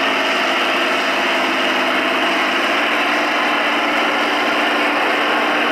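Valtra farm tractor's diesel engine running hard under heavy load as it drags a tractor-pulling sled, a steady, loud drone whose note drops slightly about halfway through.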